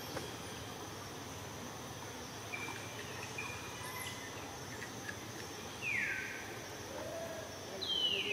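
Steady forest background with insects droning at a constant high pitch, and two short falling calls, each sliding down in pitch, a couple of seconds apart near the end.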